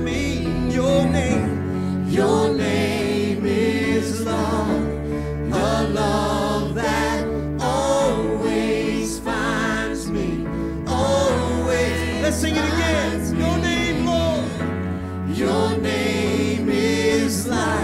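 Gospel worship song: a man sings lead into a microphone over sustained keyboard chords and bass, with the voice rising and falling in long phrases.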